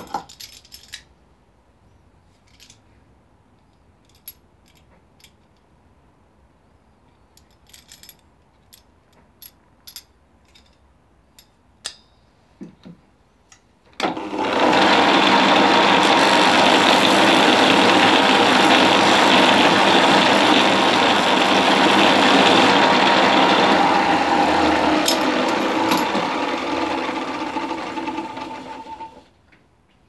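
Small clicks and taps of hand work, then a bench belt-and-disc sander starts suddenly about halfway through. It runs loudly and steadily with a small piece held in locking pliers against the disc, then winds down and stops near the end.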